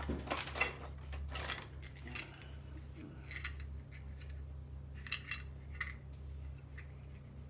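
Light metallic clicks and clinks as a small metal powder compact with a lipstick holder and other small items are handled, coming every second or so, loudest about half a second in, over a steady low hum.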